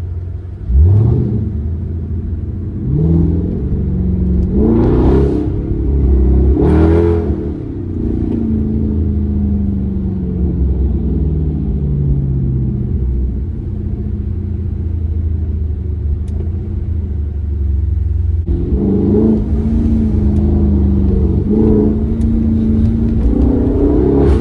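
Car engine accelerating hard, its pitch climbing in several quick pulls with drops between them, like shifts up through the gears. It then winds down in a long falling pitch. A second hard pull with more shifts starts about three quarters of the way through.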